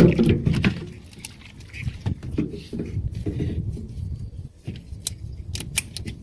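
Hands working in a car engine bay, moving a part aside: irregular clicks and knocks of plastic and metal, with a burst of sharp clicks about five seconds in.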